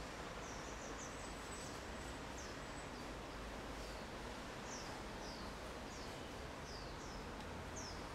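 Faint steady hiss with a bird chirping over and over: short, high chirps that fall in pitch, one or two a second.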